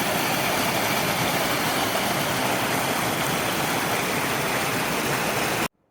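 Steady rushing of fast-flowing water, even in level throughout, cutting off suddenly near the end.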